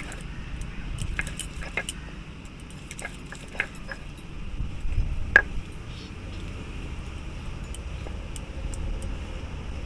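Ginger and garlic being ground on a flat grinding stone (sil-batta): a low, steady grinding rumble with a few sharp clicks of stone, one louder click about halfway through.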